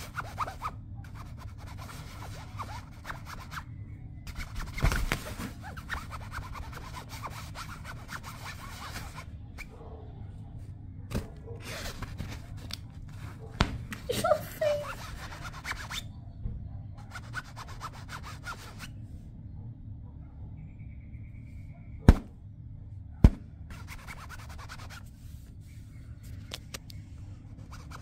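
Scratching and rubbing on the fabric wall of a pop-up play cube, as kittens inside paw and claw at a finger poking through it. Two sharp knocks about a second apart stand out late on, the loudest sounds.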